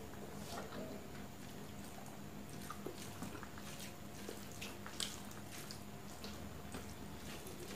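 Wet eating sounds as fingers squish and mix rice with chicken and egg curry on a steel plate, with scattered small smacks and clicks, the sharpest about five seconds in, over a steady low hum.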